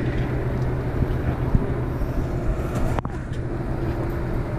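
Boat engine running steadily with a low hum. A sharp click about three seconds in.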